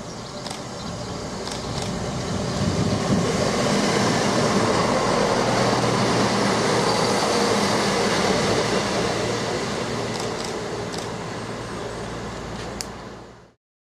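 A train running past on the line, its noise swelling over a few seconds, holding loud, then easing off, with a steady low hum under it, a faint high whine and a few sharp clicks. The sound cuts off abruptly near the end.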